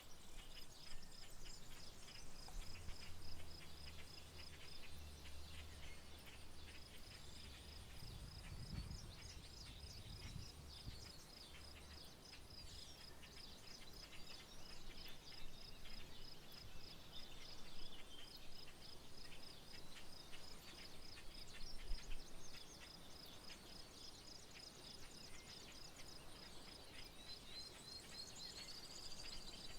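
Rural outdoor ambience: birds chirping over a steady, high, evenly pulsed trill that pauses now and then. A faint low rumble runs through the first third.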